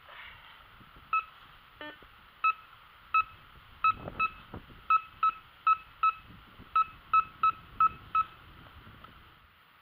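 Metal detector sounding a target signal: about fifteen short, sharp beeps at one pitch, unevenly spaced, with faint low rustling under them.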